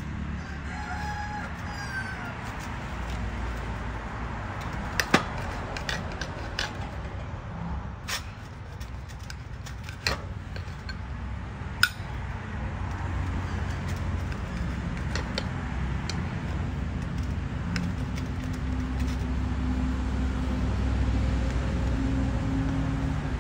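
A rooster crows once in the background about a second in. A knife cuts through crusty bread rolls on a ceramic plate, the blade clicking sharply against the plate a few times, over a steady low rumble.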